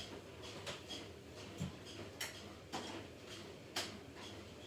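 Irregular sharp knocks and clicks, about five, from a window air conditioner's casing being handled and shifted.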